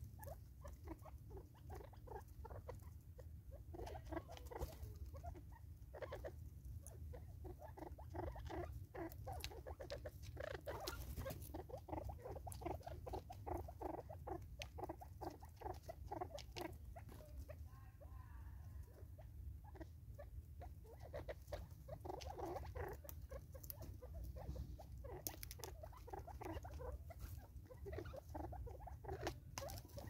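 Natal spurfowl pecking seed from a plastic bottle feeder: many rapid, irregular light taps and clicks of beaks on plastic and seed, in clusters with short pauses.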